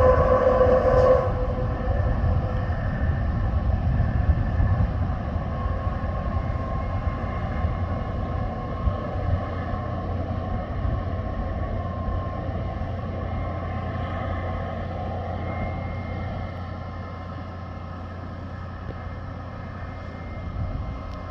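Starship launch pad venting and humming: a steady rumbling hiss with several held tones. The loudest tone cuts off about a second in, and the rest slowly fades.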